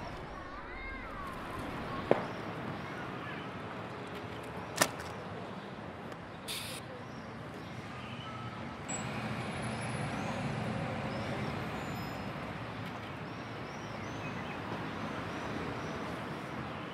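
Street ambience: a steady traffic hum that swells a little about ten seconds in as a car goes by, with faint bird chirps and two sharp clicks, about two and five seconds in.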